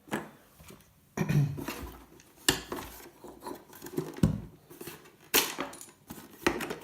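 Small metal and plastic parts of a dismantled gaming steering wheel clinking and knocking as they are handled and set down: a handful of separate, irregular clicks and knocks, a few with a dull thud.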